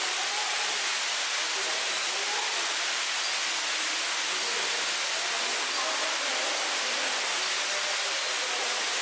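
Steady rushing noise in the enclosure, with faint, indistinct voices of people in the background.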